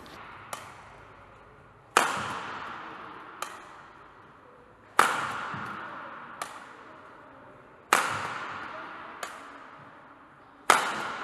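Badminton smashes: four loud, sharp cracks of racket strings striking the shuttlecock, about three seconds apart, each ringing on in a long hall echo. A much softer racket tap falls between each pair of smashes.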